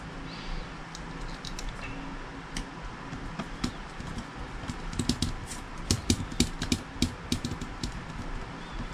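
A small screwdriver turning a screw into the plastic frame of an airsoft Beretta M9 pistol: a run of light clicks and ticks, thicker in the second half.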